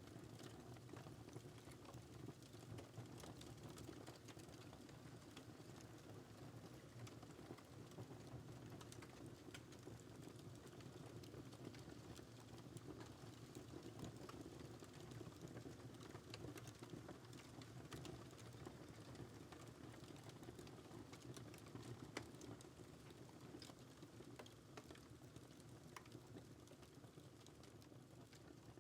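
Wood fire in a fireplace crackling faintly: scattered small pops and snaps over a steady low hum.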